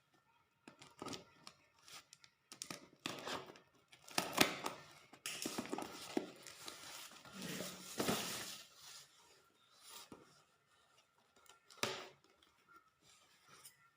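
A parcel being opened by hand: the wrapping rustles and tears amid scattered clicks and knocks, with a longer stretch of tearing and crinkling in the middle.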